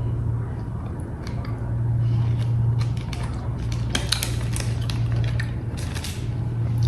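Bites and chewing of a crisped-rice milk chocolate bar: crunchy crackles, clustered about four to six seconds in, over a steady low hum.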